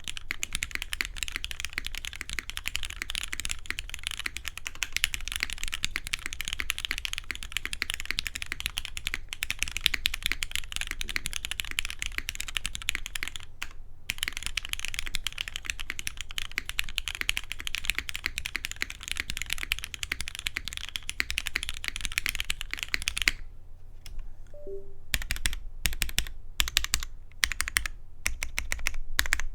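Fast, continuous typing on a Matrix 8xv2.0 Additional custom mechanical keyboard with an aluminium plate, Krytox-lubed retooled Cherry MX Black linear switches and GMK keycaps, each keystroke a clack. The typing stops briefly near the middle and for about two seconds three-quarters of the way through, then comes back as slower, separate keystrokes.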